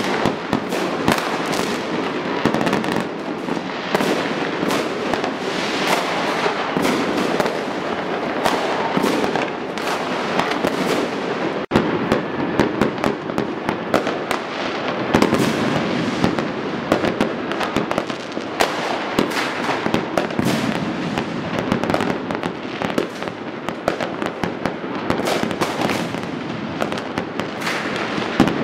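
Many fireworks going off at once across a town: a dense, continuous crackle of bangs and pops from rockets and bursting shells, with no pause.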